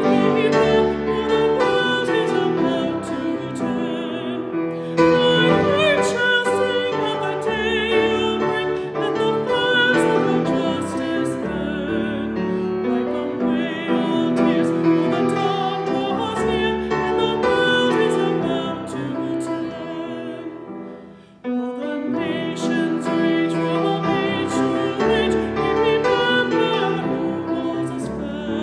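Music: a solo voice singing with vibrato over piano, in a classical style. The music fades almost away about two-thirds of the way through, then comes back in.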